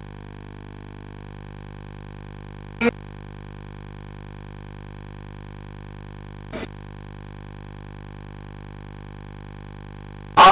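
Steady electrical hum from the public-address system, a buzz made of many even overtones. It is broken by three short bursts of sound about three, six and a half, and ten seconds in, the last the loudest.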